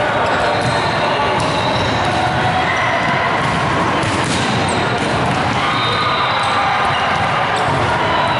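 Many volleyballs being bumped and passed and bouncing on a hardwood gym floor, giving a steady clatter of ball hits in an echoing hall.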